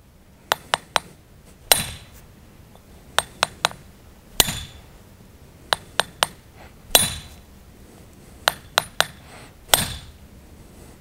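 Hand hammer striking a splitting chisel held on a stone paving cube. Groups of about three quick light taps are each followed by a harder, ringing blow, repeating about every two and a half seconds, four times. These are steady, unforced blows while the stone has not yet split.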